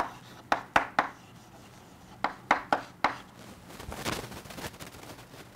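Chalk writing on a chalkboard: two quick runs of sharp taps as letters are struck on, then a longer scratchy rub of chalk about four seconds in.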